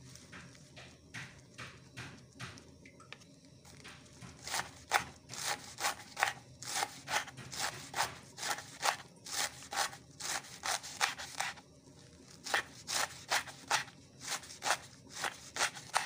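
Kitchen knife slicing a roll of green leaves on a wooden chopping board: a steady run of knife knocks on the board, about three a second. The strokes are softer at first, get louder after a few seconds, and pause briefly about three-quarters of the way through.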